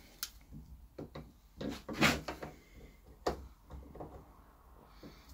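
Small yellow-handled cutters clicking and scraping irregularly as they are worked at the rubber-and-steel strap of an Otto Lock held in a bench vise. The loudest snap is about two seconds in and another comes a little after three seconds.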